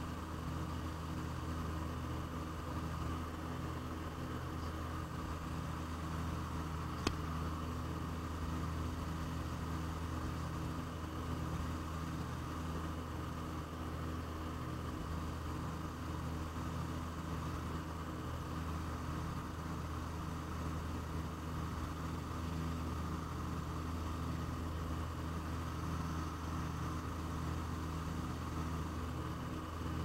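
Cabin drone of the Aero Commander L-26B's twin piston engines in level flight, steady throughout. A single sharp click about seven seconds in.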